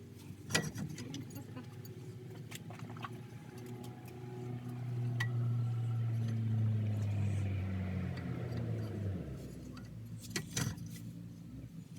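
An engine or motor hum that swells over several seconds in the middle and then fades out, with scattered metallic clinks and clicks, loudest about half a second in and again near the end.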